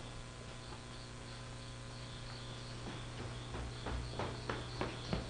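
Crickets chirping steadily, a small high chirp about three times a second, over a low steady hum. In the second half come a few soft footsteps.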